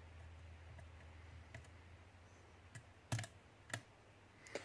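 A lock pick working the pins of a pin-tumbler challenge lock, with faint light clicks and scrapes and a few sharper clicks about three seconds in and near the end as pins are lifted and set.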